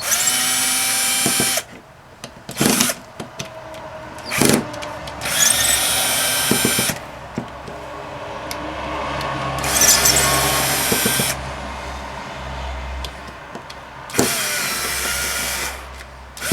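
Power drill-driver running in four short bursts of about one and a half seconds each, backing screws out of a pump housing, with clicks and knocks of handling in between.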